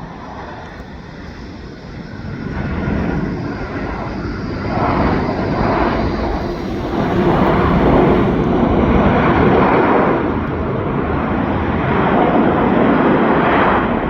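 Jet airliner engines: a rushing noise that builds from about two seconds in and stays loud, swelling and easing in waves.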